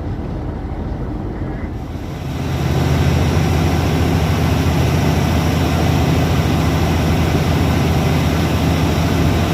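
Steady low engine drone with a rushing noise over it, growing louder about two seconds in and then holding steady.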